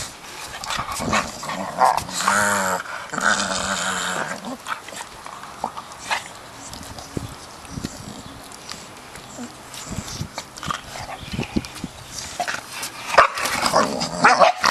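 Two dogs play-fighting, growling at each other, with a wavering drawn-out vocal sound about two seconds in and louder bursts of noise near the end.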